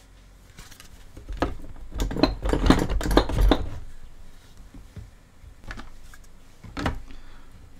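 Hard 3D-printed plastic parts knocking and rattling against each other as a PLA chassis plate is pushed and worked into place in the robot's wheeled base. A cluster of knocks runs from about a second and a half to three and a half seconds in, then a couple of single clicks follow near the end.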